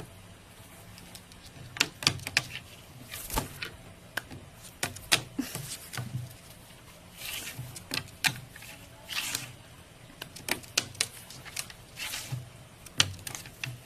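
Irregular sharp clicks and knocks, scattered through the stretch, with two brief rustling noises in the middle.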